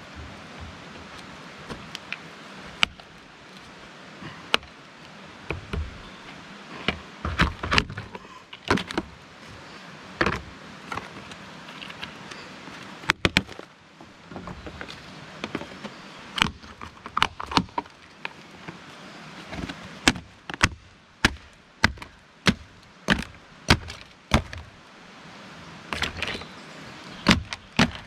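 Hammer blows: sharp, loud knocks, irregular and sparse at first, then coming in runs of about two a second in the second half, as buckets are knocked off the feet of posts.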